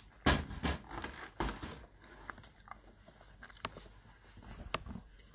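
Knocks, clatter and crackling of small objects being handled close to the phone's microphone: a loud cluster in the first two seconds, then a few scattered clicks.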